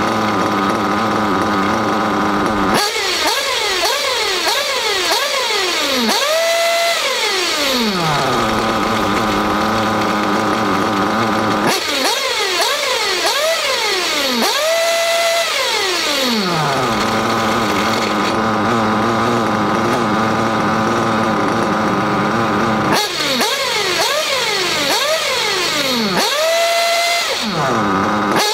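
Nitro engine of an RC buggy being revved on the bench: repeated quick throttle blips that shoot up in pitch and fall back, between stretches of steady running. The top-end mixture is being leaned out, so the engine's tone changes from rev to rev.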